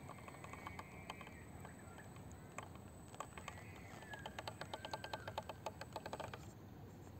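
Absima CR-18 Pro Hunter 1/18-scale RC rock crawler clicking as it works over rock. Scattered clicks come first, then a fast run of about ten clicks a second for two to three seconds in the second half. Faint short chirps are heard as well.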